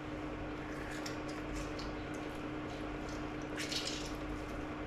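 Half a lime squeezed by hand, the juice dripping into a small bowl of sour cream, with faint squishing of the fruit. A steady low hum runs underneath.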